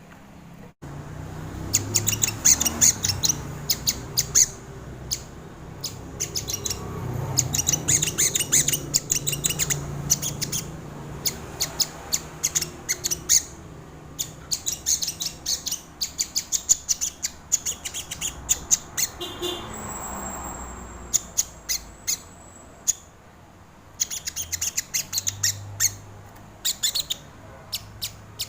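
Crimson sunbird (sogon) singing: rapid bursts of sharp, high-pitched chirps run together in fast trills, repeated in phrases every few seconds.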